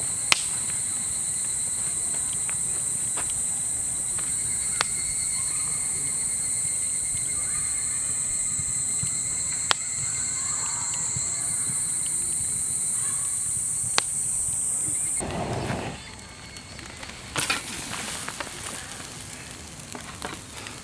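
Insects trilling steadily and high-pitched, with a few sharp crackling pops from a wood fire; the trill cuts off suddenly about 15 seconds in. A couple of seconds later a crackling, hissing campfire takes over.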